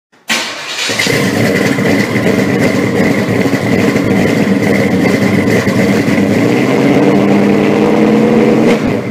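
A car engine running and revving loudly. It starts suddenly and drops away at the end.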